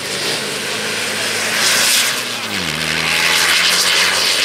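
Engine of an off-road rally vehicle passing at speed, its pitch dropping sharply as it goes by about two and a half seconds in, over a loud rushing noise.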